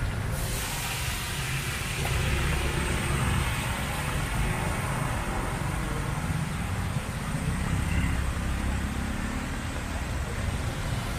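Crickets deep-frying in a wok of hot oil, a steady hissing sizzle that swells about half a second in as a strainer-load goes into the oil. Under it runs a steady low rumble, louder than the sizzle.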